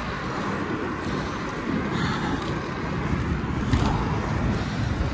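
Inline skate wheels rolling over wet asphalt with a steady hiss and rumble, wind buffeting the microphone, and a single click a little past halfway.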